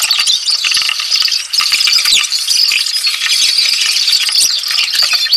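Crickets chirring steadily and loudly, with many small clicks and rattles from a screwdriver and parts being handled on the TV's mainboard.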